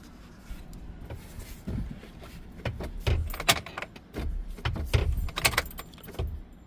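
Keys jangling on a key ring, with scattered clicks and a few low knocks, as the ignition key of a 2013 Chevy 4.8 pickup is worked; no starter or engine sound: the truck does not crank.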